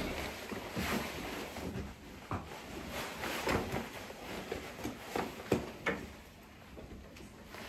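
Large backpacking pack being hoisted onto the back and settled: fabric and strap rustling with several sharp clicks and knocks, the loudest about five and a half seconds in.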